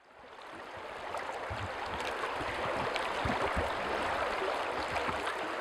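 Rushing water from a mountain stream, fading in over the first second and then running steadily, with irregular low splashes and gurgles beneath.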